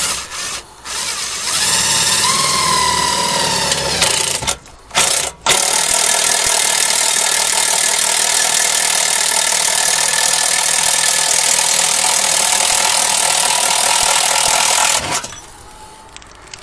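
Makita 14.4 V cordless impact driver spinning a 35 mm hole saw through the sheet steel of a car's fender panel: a loud, steady grinding with two brief stops about four and five seconds in. It cuts off about fifteen seconds in as the saw breaks through.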